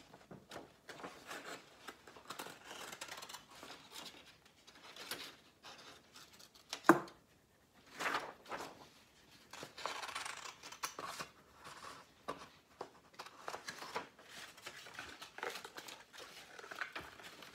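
Scissors snipping through construction paper, mixed with the scratch of a crayon colouring on paper and paper rustling. A single sharp tap about seven seconds in.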